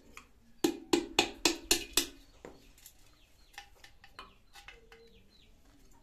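A hammer tapping a large nail into an unglazed clay pot to widen its nest-hole: six quick sharp taps, about four a second, starting under a second in, followed by a few lighter taps. Small birds chirp faintly in the second half.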